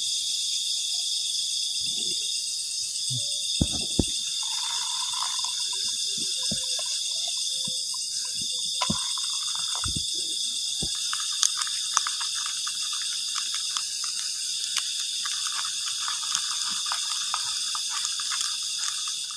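Steady night chorus of crickets and other insects, a continuous high-pitched trill. Occasional sharp knocks and a light clatter, with a patch of fine crackling in the second half.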